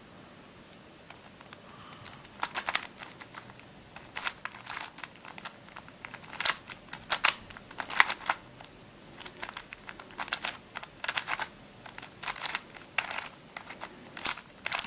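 Witeden 2x2x3 Camouflage II twisty puzzle being turned by hand to scramble it: irregular clusters of sharp plastic clicks and clacks as the layers turn and the pieces knock together, starting about two seconds in.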